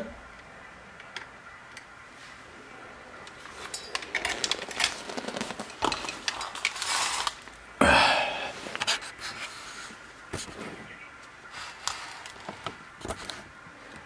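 Tools and parts being handled around an open stereo receiver's metal chassis on a workbench: scattered clicks, taps and clatter, with one louder clatter about eight seconds in.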